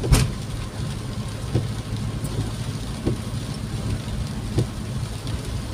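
Heavy rain on a moving vehicle, heard from inside the cabin over steady engine and road rumble, with the windshield wipers sweeping about every second and a half. A sharp knock sounds right at the start.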